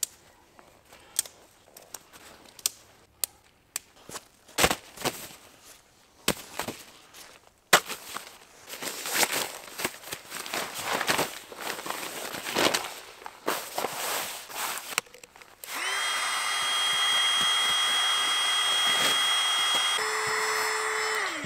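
Camping gear being handled: scattered knocks, then several seconds of rustling and crinkling. Then a small electric motor runs steadily for about six seconds; its pitch steps up near the end, and it cuts off and winds down.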